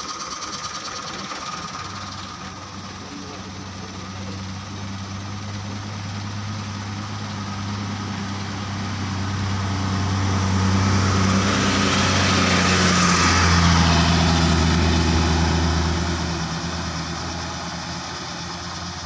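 Coach bus approaching, passing close by and driving away: its diesel engine hum grows louder for about ten seconds, a rush of tyre and road noise peaks as it goes past with the engine note stepping down, then the sound fades.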